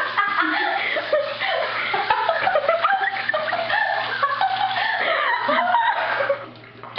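Several people gagging and laughing in squawky bursts, with a short lull near the end.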